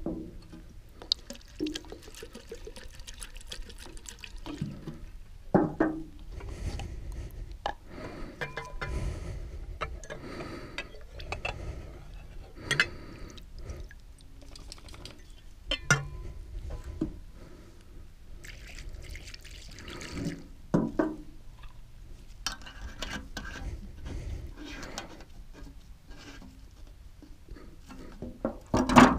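Acetone poured from a metal can through a plastic funnel into a steel oil pump pickup tube, sloshing and draining, with scattered clinks and knocks as the metal tube and can are handled. The tube is being flushed to clear out trapped water.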